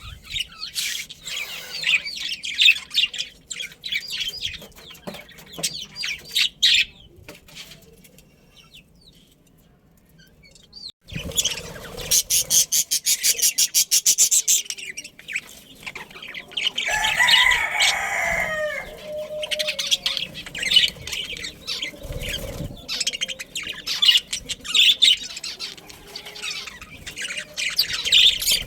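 Budgerigars chirping and chattering busily, with a few seconds of rapid wing flapping about halfway through and a lower, gliding call from another bird a little later.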